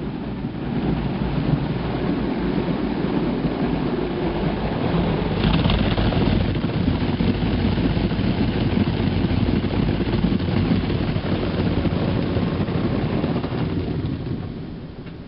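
Automatic car wash machine working over the car: a steady, loud rush of water spraying and washing across the body and glass, over a low rumble. It eases off near the end.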